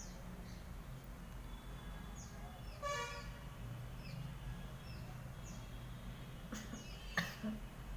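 Small birds chirping in short, falling calls over a steady low hum, with a brief vehicle horn toot about three seconds in and a couple of sharp clicks near the end.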